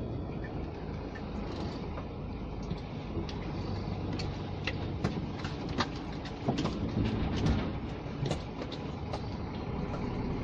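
Scania G460 truck heard from inside the cab, its engine running steadily at low speed. Scattered light knocks and rattles come through, loudest a little after the middle.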